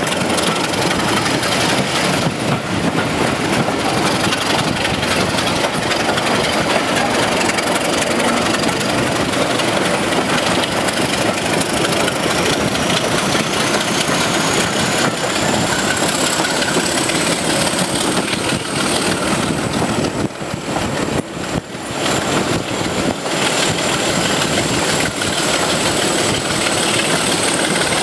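BR Class 26 diesel-electric locomotive's Sulzer six-cylinder engine working as it hauls the train, heard from a coach window behind it along with the rumble of the coaches on the rails. A high whine climbs in pitch about a third of the way through, then holds.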